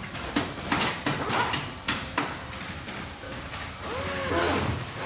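Factory floor ambience: a steady mechanical hum of machinery, with a run of sharp clanks and knocks in the first two seconds or so and a short wavering tone about four seconds in.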